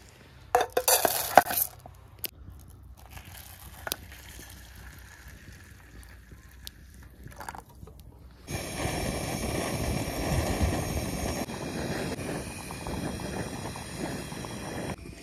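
Camp cookware clattering briefly, followed by quieter handling, then a steady hiss for about six seconds.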